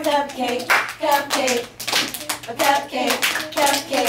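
Hands clapping a steady beat, about two claps a second, with voices singing along between the claps.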